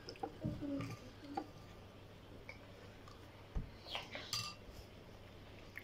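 White plastic knife and fork tapping and scraping against a cut-glass bowl while cutting and picking up a piece of kahk cookie. A few short, faint clicks and clinks come in the first second or so and again past the middle, with quiet between.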